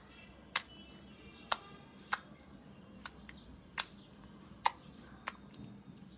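Slime being worked by hand, giving about seven sharp pops at irregular intervals as trapped air bubbles burst.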